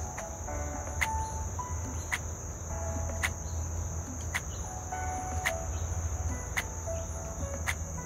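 Steady high-pitched trilling of crickets or similar insects, unbroken throughout. Over it plays soft background music: a simple stepping melody with a light beat about once a second.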